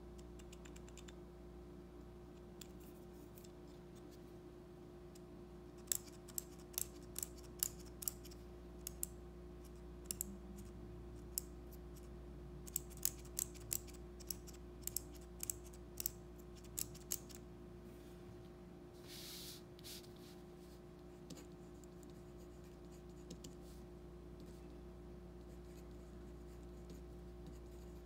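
Everyman Grafton metal mechanical pencil's push-button clicked over and over, about twenty sharp clicks at an uneven pace, advancing the lead. Near the end comes the faint scratch of its lead writing on paper.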